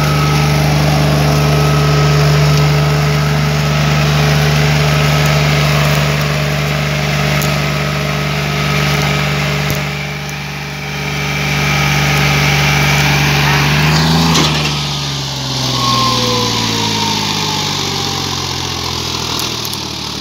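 John Deere 5039D tractor's three-cylinder diesel running steadily and hard under load as it drags a disc harrow through dry soil. About fourteen seconds in, the engine note starts to fall gradually in pitch and keeps dropping to the end.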